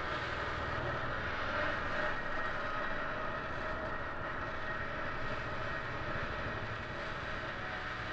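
A steady, noisy rumbling drone with a few faint held tones in it, easing off slightly toward the end, from the film's experimental sound design.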